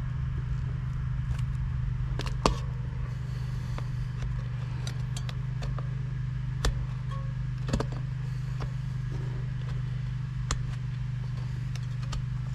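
Plastic tire lever prying a stiff downhill-casing mountain bike tire bead onto the rim: scattered sharp clicks and knocks of lever, rubber and rim, the loudest about two and a half seconds in. A steady low hum sits underneath.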